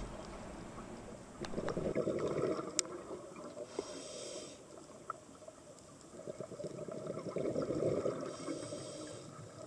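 Scuba diver breathing through a regulator, heard underwater: a short hiss on each inhale, then a rush of bubbling exhaled air, repeating about every five to six seconds.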